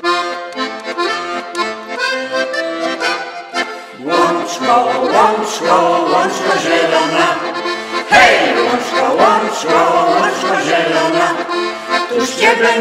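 Accordion playing a traditional folk tune. It opens with held chords, then turns livelier and fuller from about four seconds in.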